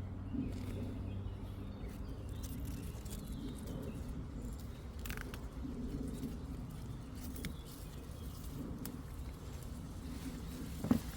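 A pigeon cooing in repeated low phrases, with faint small chirps and a single sharp knock near the end.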